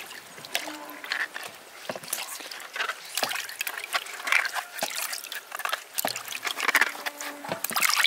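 Hands scrubbing quinces in a steel basin of water: irregular splashing and sloshing, with drips and trickles as the fruit is lifted and rubbed.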